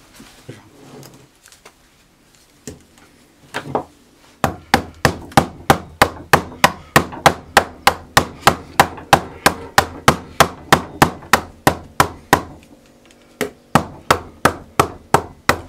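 Claw hammer blows driving a steel axle and a laminated wooden sanding drum together. A few light knocks come first, then a steady run of sharp blows at about three to four a second, a short pause, and another run of blows near the end.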